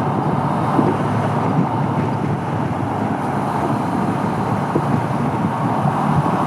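Steady wind rush and road noise from a 2014 Honda CB500X motorcycle under way at traffic speed, with its parallel-twin engine running underneath.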